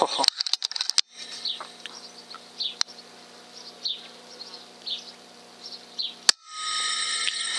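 Suppressed .22 FX Impact M3 PCP air rifle shot: a sharp crack about six seconds in, followed by a buzzing hum with several overtones lasting about a second and a half. A few lighter clicks come early on, and faint short chirps sound in between.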